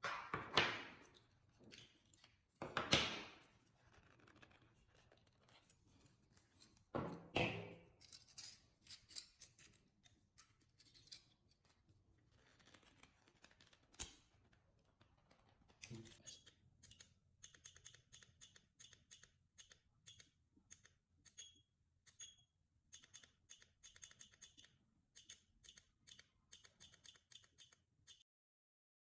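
Small spot welder in use: a run of short, sharp clicks, about two a second, some with a brief high tone. Earlier come a few louder noisy bursts of handling.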